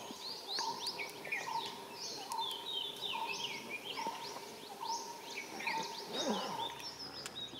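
Forest birds calling. One bird repeats a short mid-pitched note about every second, steadily throughout. Others give a busy overlay of quick, high, downward-sweeping calls.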